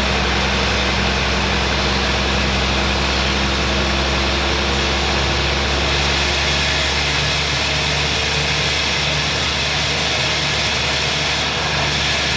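Sawmill machinery running steadily with a loud, even mechanical noise over a low hum; about halfway through the deepest hum drops away while the machine keeps running.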